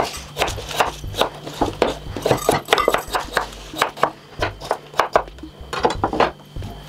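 Kitchen knife chopping chow chow (chayote) on a wooden cutting board: a run of uneven knocks, about three a second.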